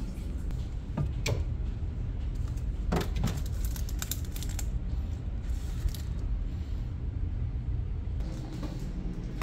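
Drinks and snacks being set on refrigerator shelves: a few light knocks and clicks of a can, a yogurt cup and cartons against the shelves, over a steady low hum.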